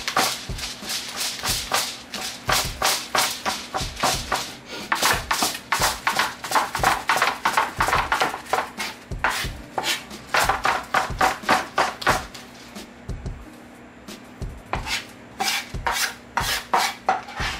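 Large kitchen knife chopping smoked beef brisket on a plastic cutting board: quick, sharp chops about three a second, with a pause of a couple of seconds a little past the middle before the chopping resumes.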